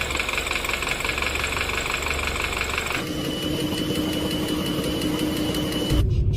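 Vehicle engine noise samples: an engine running with a fast, even ticking for about three seconds, then a different running sound with a steady whine, changing again just before the end.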